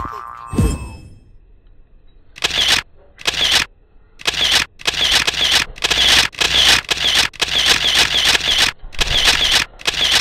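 Trampoline springs creaking and jangling with each bounce, a short noisy burst about every 0.7 seconds, starting a couple of seconds in. Just before this, a brief falling tone slides down at the very start.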